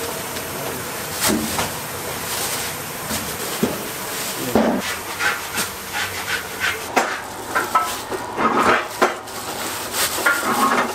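Irregular knocks, scrapes and rubbing from rice-cake dough being handled and moved about, coming more often in the second half.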